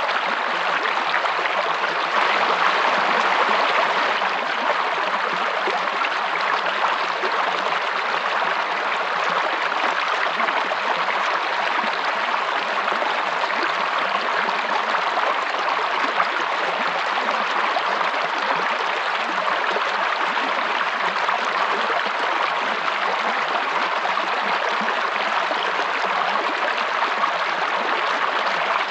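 A stream of water running and babbling in a steady, unbroken rush.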